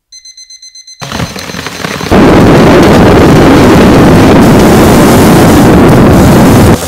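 Quick high-pitched electronic beeping for about a second. Then a rough, noisy sound builds and, about two seconds in, becomes a steady, very loud, distorted noise that cuts off just before the end.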